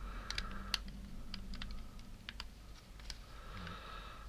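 Small irregular plastic clicks and taps as the casing parts and clips of a Panasonic HC-V180 camcorder are handled and snapped back together.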